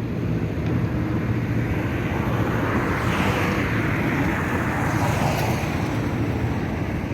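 1989 Camaro IROC's V8 engine running with its electric radiator cooling fans on: a steady rushing noise over a low engine hum. The rush swells in the middle and cuts off abruptly near the end. The fans switching on are the sign that the engine has reached operating temperature.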